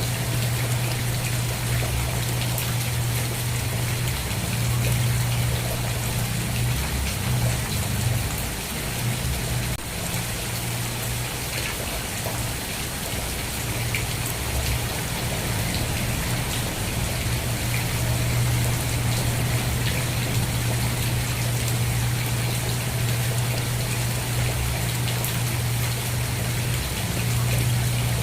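Steady rain: an even hiss of falling drops with fine patter, over a constant low hum that thins out briefly about eight to ten seconds in.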